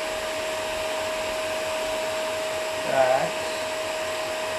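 Dyson DC24 ball upright vacuum cleaner running at full suction: a steady high motor whine over rushing air.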